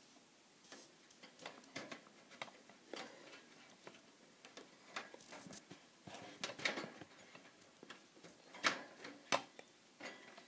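Faint, irregular clicks and taps from small toy pieces and a pipe cleaner being handled, with two sharper taps near the end.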